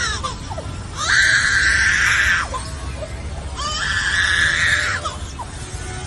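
Superb lyrebird mimicking a human baby's cry: two long, harsh wailing cries, the first about a second in and the second about halfway through, each ending in a falling squeal.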